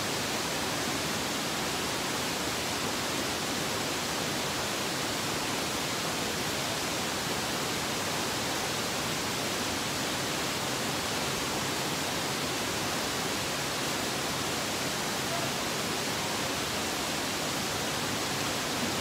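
Steady, even rushing noise that does not change in level or character.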